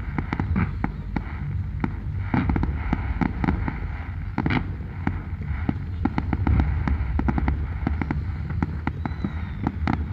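Aerial fireworks going off in quick succession: many sharp bangs and crackles a second over a steady low rumble, with one louder burst about halfway through.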